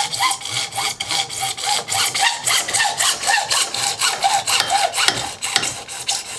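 Hand hacksaw cutting through PVC plastic pipe clamped in a bench vise, in steady, even back-and-forth strokes at a few strokes a second.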